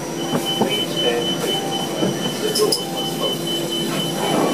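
Inside an NFTA Metro Rail light-rail car as it comes to a stop: steady train running noise with a high whining tone held throughout, a lower hum that fades out near the end, and the car's doors sliding open.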